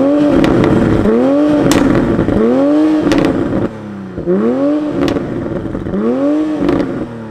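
Stock 2020 Toyota GR Supra's turbocharged B58 inline-six revved in place five times through the factory exhaust in sport mode, each rev rising and falling quickly, with sharp exhaust pops as the revs drop.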